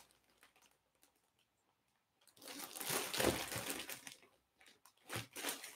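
Clear plastic bag crinkling as the jersey sealed inside it is handled, starting about two seconds in and lasting a couple of seconds, with a few fainter rustles near the end.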